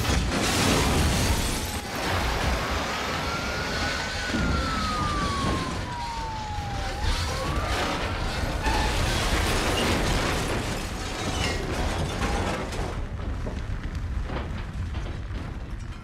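Car crash and explosion: a dense, continuous noise of blast and fire with many crashes of falling debris. A police siren wails over it, rising and falling twice in the first half.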